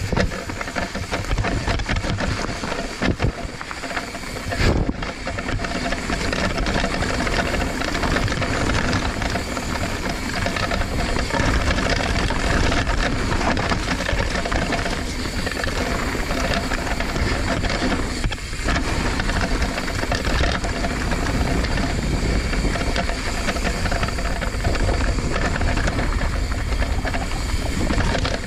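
Raw action-camera audio of a mountain bike riding a dirt trail: steady rolling noise of knobby tyres on dirt and stones, with the bike rattling over bumps and a sharp knock about five seconds in.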